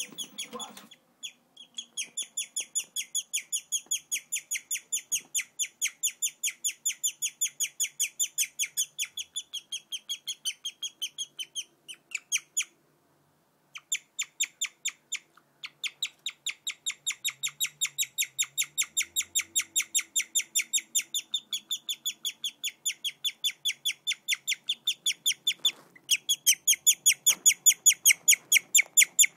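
Guinea pig chirping: a long, bird-like run of short high-pitched chirps, about four a second, broken by a brief pause near halfway.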